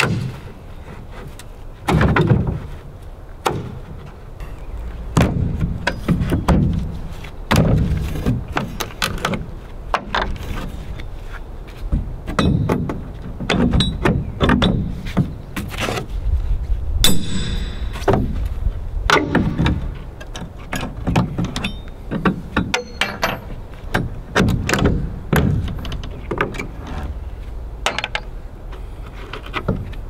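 Steel hammer striking a pry bar and the bar levering nails out of wooden pallet slats: irregular metal-on-metal strikes, knocks and wooden clunks, with a short metallic ring about halfway through.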